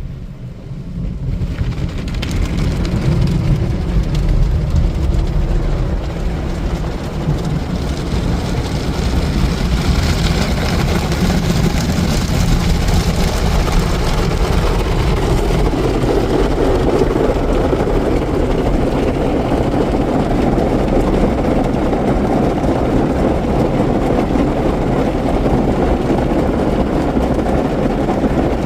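Ryko Softgloss MAXX automatic car wash working over the car: a loud, steady rushing wash noise that builds up over the first two seconds and turns deeper and heavier about halfway through.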